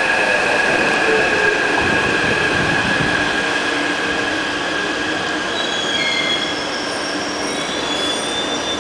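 Taipei Metro C371 electric train braking into the platform: a steady high electric whine, with a lower whine falling in pitch in the first second or so as it slows. High wheel and brake squeals come in about two-thirds of the way through as it comes to a stop.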